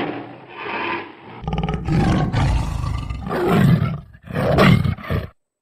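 Tiger roaring: several rough, rasping roars in a row that cut off abruptly just before the end.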